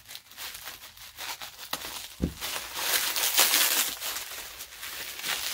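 Packaging crinkling and rustling as a mailed package is cut open with scissors and unwrapped, in irregular handling noises that are busiest in the second half. A single low thump about two seconds in.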